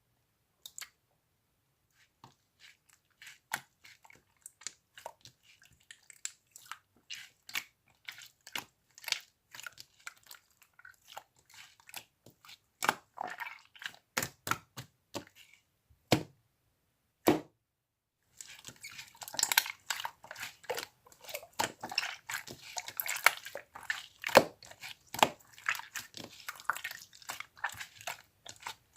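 Hands squeezing and poking slime: wet, sticky clicks and pops, spaced out at first, then about two-thirds of the way through a dense run of crackling.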